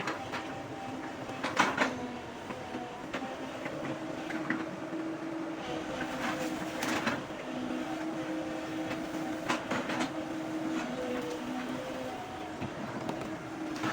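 Hydraulic excavator at work: its diesel engine runs steadily and steps a little up and down in pitch, with scattered clanks and knocks, the loudest about one and a half seconds in.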